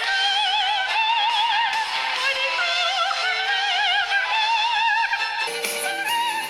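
Music with a high, opera-like singing voice in wide vibrato, played back through a smartphone's loudspeaker, with thin bass. About five and a half seconds in, the sound fills out with more low and high content.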